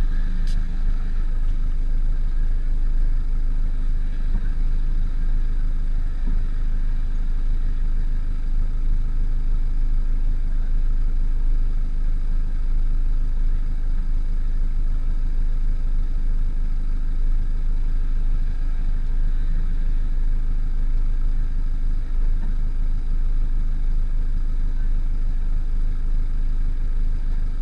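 Lotus with a Milltek aftermarket exhaust idling steadily, heard close up at the tailpipes as a low, even rumble.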